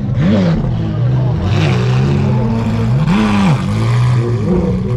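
A sports car engine idling with short throttle blips every second or two, each revving up and dropping straight back.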